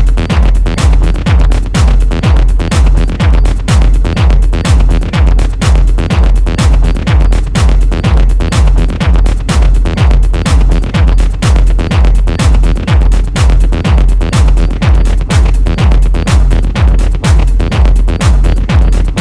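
Electronic dance music with a steady, fast kick drum beating a little over twice a second, unbroken throughout.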